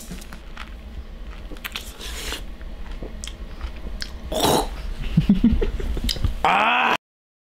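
A person biting into and chewing a peeled raw lemon, with wet mouth sounds and small chewing clicks. A louder spluttering, cough-like burst comes about four and a half seconds in, and a short vocal sound near the end, reactions to the sourness. The sound cuts off abruptly about seven seconds in.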